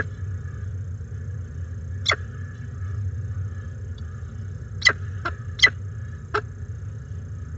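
Peregrine falcon chick giving short, sharp, squeaky begging calls while being fed, about six of them at irregular intervals, several in quick succession about five seconds in. A steady low hum runs underneath.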